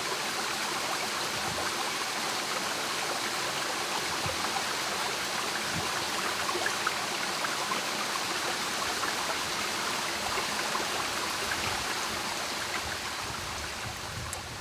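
Shallow stream water running steadily over a rocky bed, easing down near the end.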